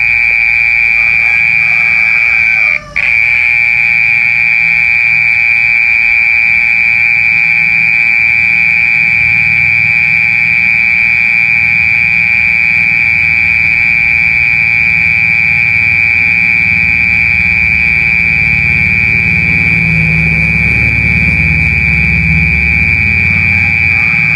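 Mole cricket calling: a loud, steady, high-pitched trill held without pause, broken only by a brief dropout about three seconds in. A low rumble sits underneath and grows stronger in the second half.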